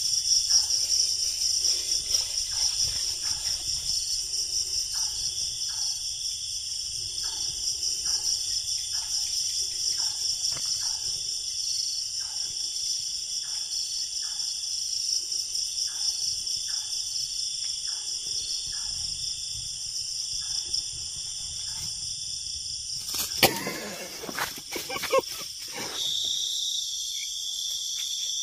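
Crickets and other night insects trill steadily at a high pitch, with short soft rustles in dry grass every second or so. Near the end comes a brief burst of crackling rustle, and after it a lower-pitched insect trill takes over.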